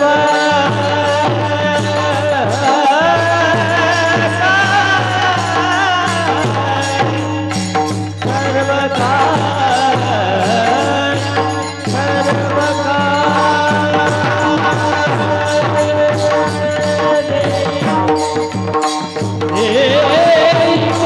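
Devotional bhajan music: a voice singing a melody over held accompanying chords, with a hand drum and small hand cymbals keeping a steady beat.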